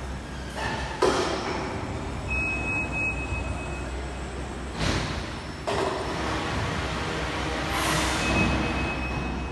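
Industrial machinery of a palletizing line in a factory hall: a steady low hum with sudden clunks and hisses, typical of conveyors and pneumatic actuators, and a short high tone twice.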